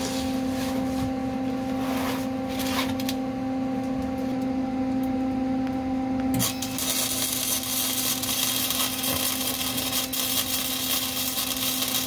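Welding arc crackling and sizzling on the steel subframe connector, starting about six and a half seconds in and carrying on steadily, over a constant hum that runs throughout.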